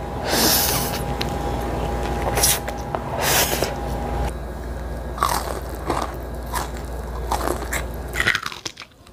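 Instant noodles slurped noisily off chopsticks, a few long sucking slurps, then wet chewing and crisp crunching of fried food in short clicky bites. A steady background hum runs underneath until near the end.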